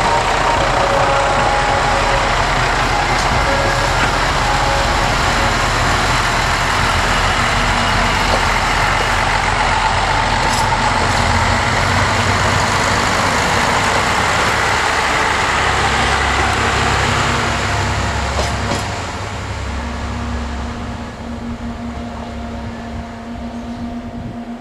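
KiRo 185-series diesel railcars pulling out of a station past the listener, their diesel engines working under power with wheels rumbling over the rails. The sound drops off after about 18 seconds as the train moves away, leaving a steady engine hum.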